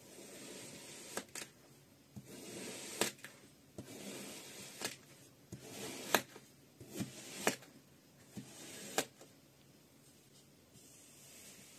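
Plastic knife slicing down through a block of kinetic sand, cut after cut: a soft grainy scrape with about ten sharp clicks spread over the first nine seconds, then quieter near the end.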